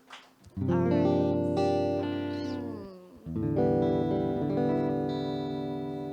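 Guitar played between songs: a chord is struck and left to ring and fade, a few notes slide down in pitch as it dies, then a second chord rings out and fades.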